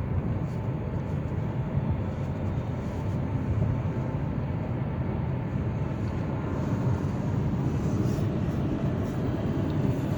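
Steady drone of a moving car heard from inside the cabin: engine and tyre noise on the road.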